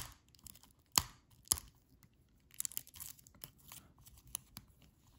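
Clear plastic shrink wrap being peeled and torn off a sealed deck of trading cards. There are two sharp crackling snaps, about a second and a second and a half in, then lighter crinkling and clicks.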